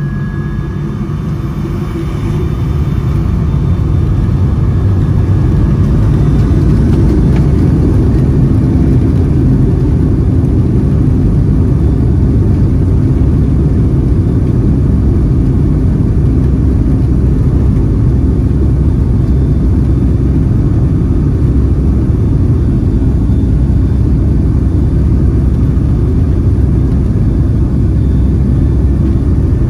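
Boeing 757-200 cabin noise: a loud, steady low rumble of the jet engines and airflow. It grows louder over the first few seconds and then holds steady.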